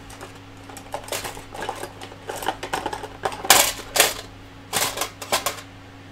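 Hands handling a 3D-printed plastic part: a run of small clicks, taps and rattles, loudest about three and a half to four seconds in, under a steady low hum.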